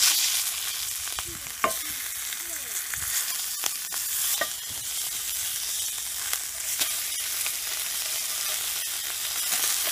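Beef ribs and steak searing in a hot cast-iron skillet, a steady loud sizzle. A metal spatula clicks and scrapes against the pan a few times as the meat is pressed and turned.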